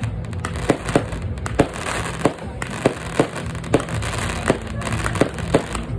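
Fireworks going off: a string of sharp bangs and pops, two or three a second at irregular spacing, over a steady low background noise.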